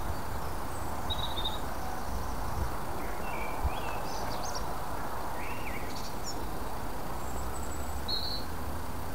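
Small birds chirping, with short calls and trills scattered through, over a steady low outdoor rumble.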